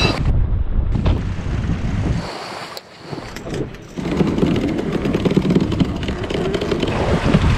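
Wind buffeting the microphone and sea water rushing past the hull of a sailboat moving fast under sail in rough water, louder from about four seconds in.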